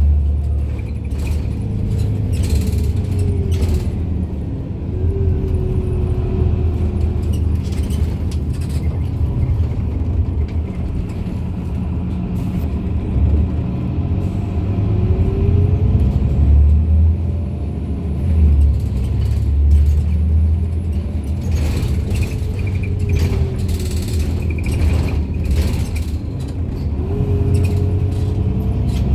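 Irisbus Citelis Line city bus with a Voith automatic gearbox under way, heard from inside: a steady low engine rumble with a whine that rises and falls several times as the bus speeds up and slows, and short knocks and rattles scattered through.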